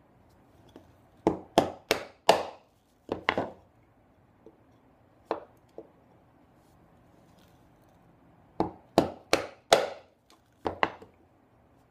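Mallet striking a bench chisel as it chops down into the wood to clean up a dado: two bursts of about four quick, sharp knocks, each followed by a couple of lighter taps.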